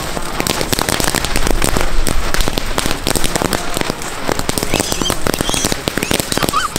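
Large ground fountain firework (a 'greeting flower' petasan) spraying sparks, with a dense, continuous crackle of many rapid small pops.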